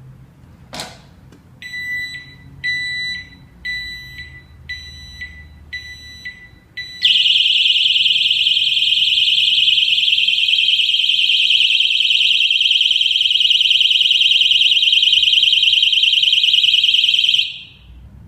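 Motorcycle anti-theft alarm lock going off: a sharp click about a second in, then a run of short high beeps about a second apart, then a loud, continuous shrill alarm tone for about ten seconds that cuts off near the end.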